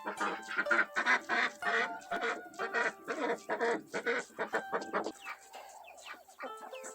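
Chickens clucking in a busy, overlapping chorus that thins out about five seconds in.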